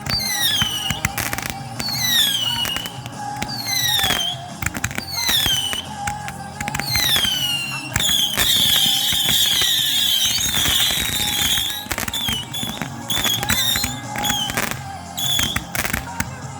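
Fireworks going off in quick succession over music: sharp bangs and crackling, with falling whistles about every two seconds early on, then a dense steady whistling hiss for about three seconds in the middle.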